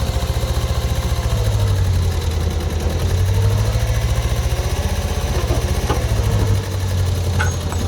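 A 1980 Bobcat skid loader's engine idling steadily, with a low, even throb.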